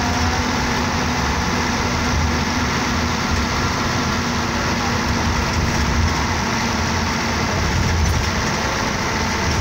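A bus driving along, heard from inside the passenger cabin: a steady low engine and road rumble with a steady hum and hiss.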